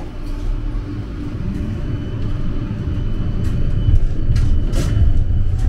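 Tram running, heard from inside the passenger cabin: a low rumble that grows steadily louder, with a few sharp clicks and rattles in the second half.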